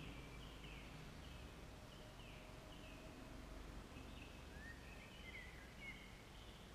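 Birds singing faintly in woodland, a series of short chirps and slurred, falling notes, over a faint low rumble.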